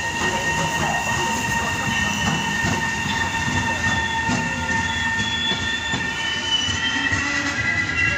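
RegioJet passenger train, an electric locomotive with yellow coaches, rolling slowly past. A steady rumble with scattered clicks from the wheels on the rails runs under a sustained high-pitched squeal of the wheels.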